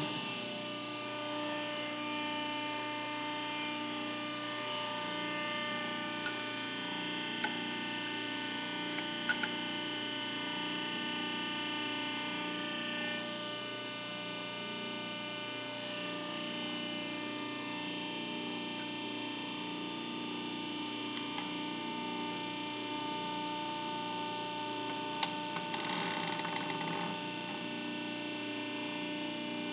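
Electric motor and hydraulic pump of a press brake's power unit running with a steady hum of several tones, with a few sharp clicks scattered through.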